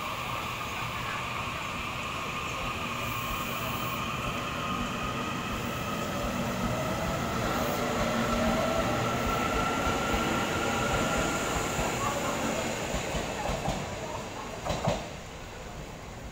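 EMU800 electric multiple unit moving through the station: a steady rumble of wheels on rails with a faint electric motor whine that slowly rises in pitch, the sound building and then easing away. A single sharp knock near the end.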